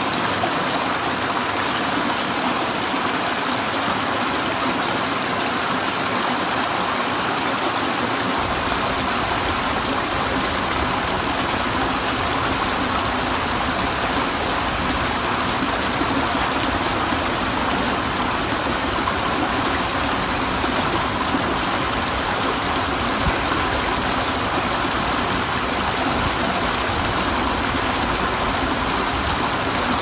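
Rushing water of river rapids, a steady, even rush with no breaks; about eight seconds in, a deeper low rumble joins it.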